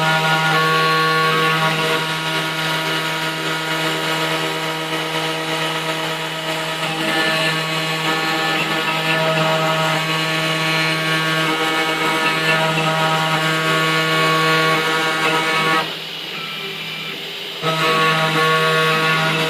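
CNC milling machine's spindle running with a steady pitched whine while milling a printed circuit board. The sound drops back for about two seconds near the end, then resumes.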